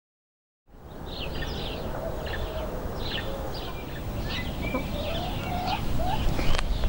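Hens clucking with short rising calls, while small birds chirp and twitter in the background; the sound starts after a moment of silence.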